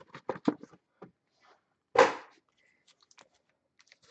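A cardboard hobby box of Donruss Optic baseball cards and its foil packs being handled: a quick run of light taps and clicks, then one loud slap about two seconds in, with faint ticks after.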